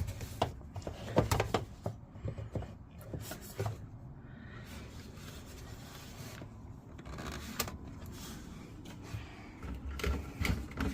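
Scattered clicks and knocks of plastic fittings and a tube being handled, over a low steady rumble. The knocks come thickest in the first two seconds and again near the end.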